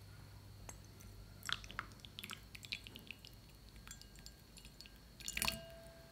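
Hot water poured in a thin stream into a small glass bowl of white powder: faint scattered splashes and ticks, with a brief louder clatter about five seconds in, followed by a faint steady ring.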